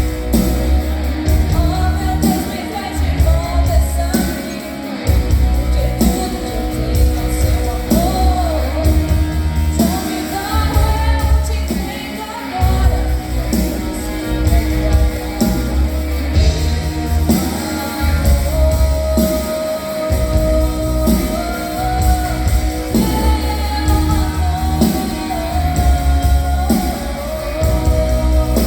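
Live band music: a girl singing the lead melody over guitar, bass and drums.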